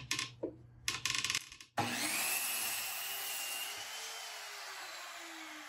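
A few clicks of the sliding compound miter saw being set to its 22.5-degree mark, then about two seconds in the saw starts suddenly and its blade winds down, the motor's pitch falling slowly as it coasts. This is a trial angle cut on a pine slat.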